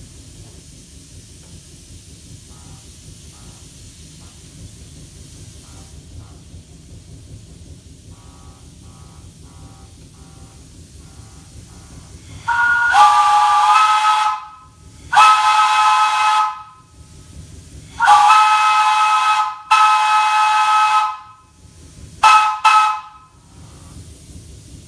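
Steam whistle blown through a new whistle valve: at first only faint, short chirps, then five loud blasts, each sounding a chord of several notes at once. The first blast bends up in pitch as it opens and the last one is short, with a steady hiss underneath.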